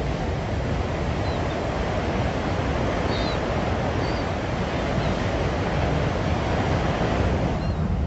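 Steady rush of wind and sea, with wind buffeting the microphone and a few faint short high chirps scattered through it.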